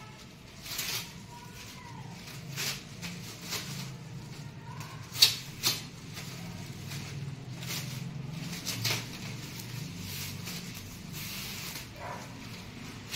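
Clear plastic wrapping film crinkling and tearing as it is pulled off a coil of black drip-irrigation pipe: a string of short crackles, with two sharp snaps a little before the middle.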